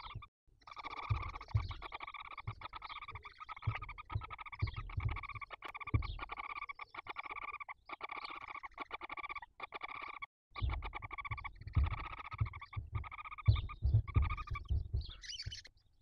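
Barn owl chicks giving a rasping, rapidly pulsing begging call, almost continuous with two short breaks, over dull low thumps.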